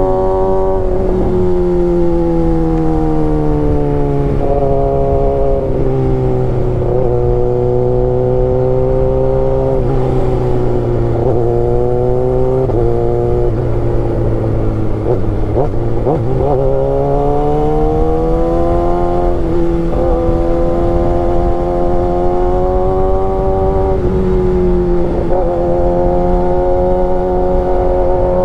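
Kawasaki ZX-6R's inline-four engine running on the move, its pitch sliding down and then jumping up several times, and climbing steadily for a few seconds a little past halfway.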